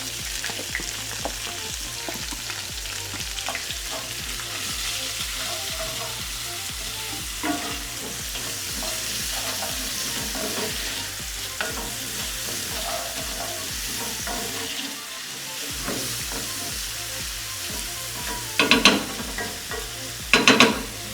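Diced onions sizzling as they fry in ghee in a pan, stirred with a spatula scraping the pan. Two louder scrapes come near the end.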